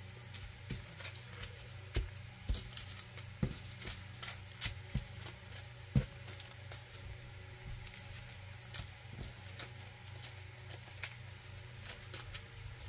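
Scattered soft clicks and taps of small plastic bags of diamond-painting drills being handled and laid out on a table, the loudest about six seconds in, over a faint steady hum.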